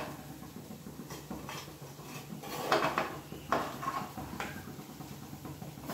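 Steel spoon stirring washed rice into chicken masala in an aluminium pressure cooker, scraping and clinking against the pot several times.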